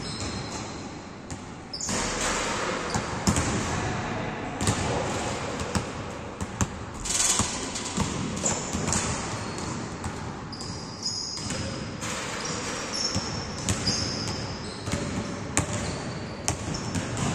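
Basketballs bouncing on a gym floor as several players dribble and shoot, a steady run of sharp thuds echoing in a large hall. Short high squeaks, likely sneakers on the court, come and go in the second half.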